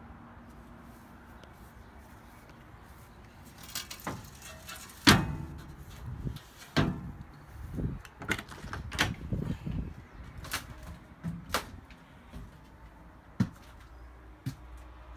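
Doors and cabinets being handled in a travel trailer: after a few seconds of low hum, an irregular run of knocks and clunks starts, the loudest one about a second later, with a few last sharp knocks near the end.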